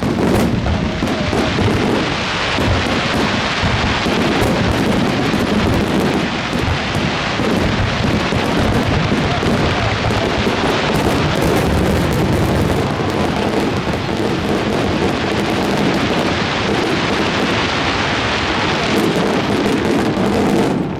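Fireworks display going off in a dense, continuous barrage, bursts following so fast that they merge into one long rumble and crackle.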